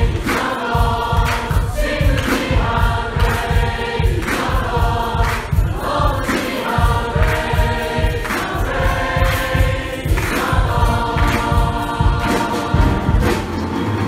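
Songster choir and congregation singing a worship song together, many voices at once in sung phrases.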